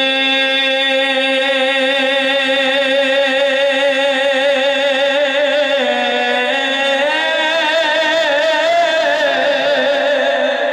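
A man's voice holding one long sung note with a vibrato, unbroken and without words, in a Punjabi devotional naat; the pitch dips slightly about six seconds in, then climbs a step a second later and wavers near the end.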